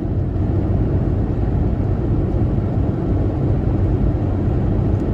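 Steady road and engine noise inside a moving car: an even low rumble with no sudden events.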